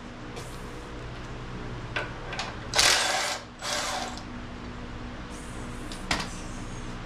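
Metal clicking and scraping from the gears and synchros of an opened 1939 Ford transmission being worked by hand, with two louder scrapes about three and four seconds in and a sharp click near the end, over a steady low hum.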